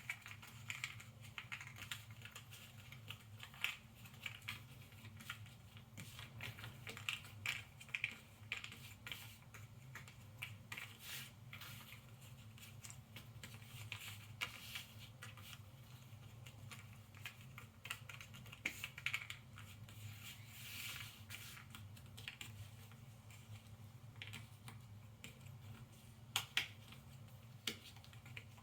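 Cardboard jigsaw puzzle pieces being handled, sorted and snapped together on a table: irregular light clicks, taps and rustles over a faint steady hum.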